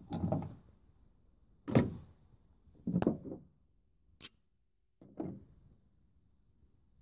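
A series of separate knocks and clunks, about one every second, the loudest a little before two seconds in, with a short sharp click just after four seconds.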